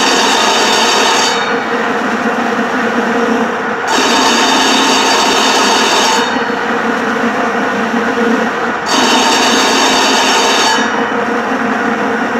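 Bias-cutting machine running, its circular knife cutting a roll of fabric on the mandrel into bias strips. A steady mechanical running noise carries a higher whine that comes and goes about every five seconds, three times.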